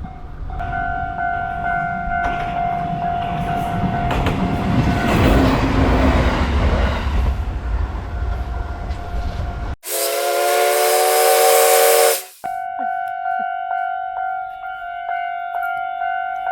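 A Japanese railroad crossing alarm rings with a steady electronic bell tone while an Isumi Line diesel railcar passes with a loud rumble. After an abrupt cut comes a loud blast of several tones lasting about two and a half seconds. Then, after another cut, the crossing alarm rings alone, striking about twice a second.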